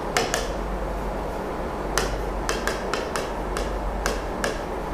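Pen tip tapping and clicking against the glass of an interactive touchscreen board while handwriting: about a dozen sharp, irregular ticks, most of them in the second half, over a steady low hum.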